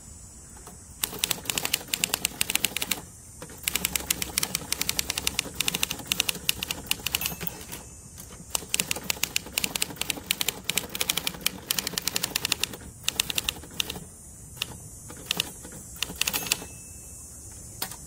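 Torpedo 18B portable typewriter typed on quickly: rapid strings of sharp typebar clacks, broken by a few brief pauses, about 3, 8 and 13 seconds in.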